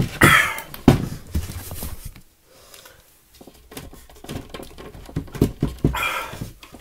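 A man panting and straining as he wrenches a broadhead crossbow bolt out of an OSB board target, with clicks and knocks as the bolt is worked back and forth in the wood. The broadhead is stuck fast and does not come free easily.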